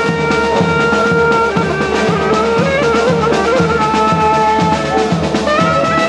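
Brass band playing a lively tune: clarinet and brass horns carry the melody over a steady beat from two double-headed bass drums.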